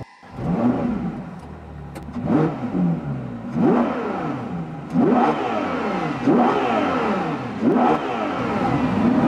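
Ferrari Daytona SP3's 6.5-litre naturally aspirated V12 fired up with the push button, then blipped repeatedly while standing in park. Each rev climbs and falls back, about once every second and a half.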